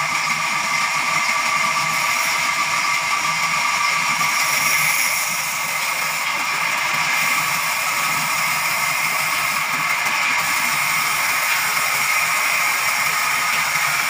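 Sawmill band saw running and cutting through a large jackfruit log: a steady whine over hiss.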